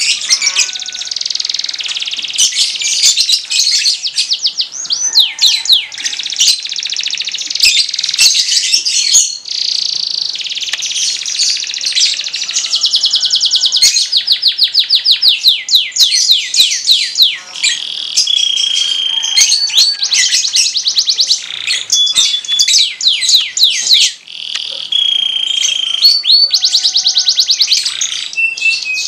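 Domestic canary singing a long, almost unbroken song of rapid trills and rolling runs of fast repeated sweeping notes, with a few held steady whistles and short pauses between phrases.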